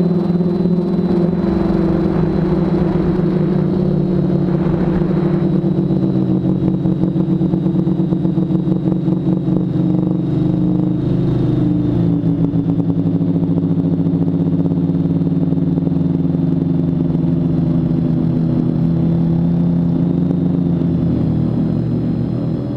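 Quadcopter's four brushless motors and 10x4.5 props humming in flight, a steady multi-tone drone whose pitch wavers with the throttle. A rushing burst comes a few seconds in, and the pitch drops lower near the end.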